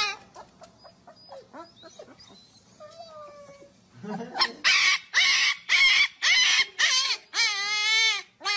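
Husky puppy whimpering faintly, then from about four seconds in crying out loudly in a string of short cries, ending in two longer wavering howls.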